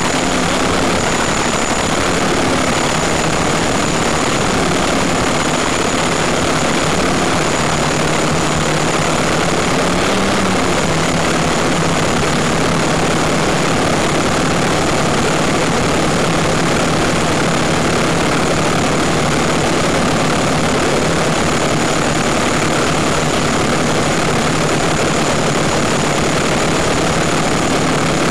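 Quadcopter's electric motors and propellers running steadily, heard from a microphone on board the craft: a dense rushing noise with a low hum and a thin, steady high tone.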